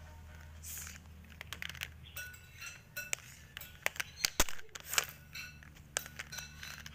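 Plastic 3x3 Rubik's cubes being handled and turned by hand: quick, irregular clicks and clacks of the layers turning and the cubes knocking together, over a steady low hum.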